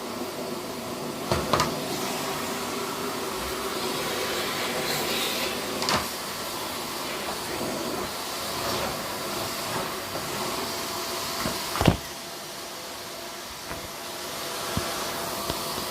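Vacuum cleaner running steadily, with a few sharp knocks, the loudest about twelve seconds in.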